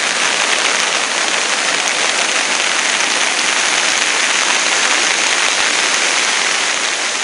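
Muddy floodwater rushing down a rain-swollen drainage canal running high with storm runoff, a steady rushing hiss.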